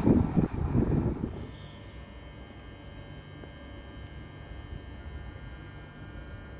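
Loud rush of wind or noise on the microphone that dies away after about a second, then a steady electrical hum and buzz with several held whining tones from a stationary Regio 2N double-deck electric train idling at the platform.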